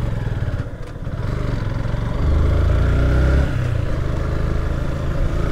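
Motorcycle engine running as the bike is ridden, heard from the rider's seat. It drops briefly about a second in, then picks up and is loudest from about two to three and a half seconds before settling.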